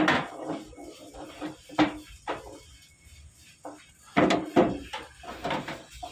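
Irregular metal knocks and clanks from parts of a sugarcane juicer being worked on: a few sharp hits, some ringing briefly, with the loudest cluster about four seconds in.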